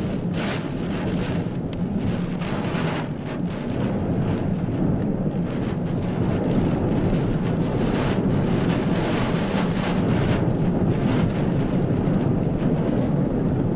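Typhoon wind and heavy rain, a loud continuous rush that swells in gusts and buffets the microphone. It grows a little louder about halfway through.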